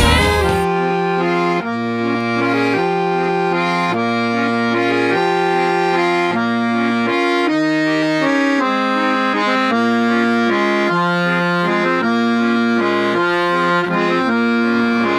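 Accordion music: a steady, repeating pattern of low bass notes alternating with chords. It starts just after a louder, different piece of music cuts off.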